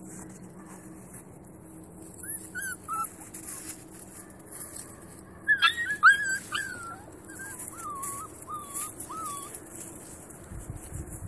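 Norwegian Elkhound puppies about six weeks old whining and yipping in short, high, bending squeaks, a string of them starting about two seconds in and loudest and most crowded around the middle.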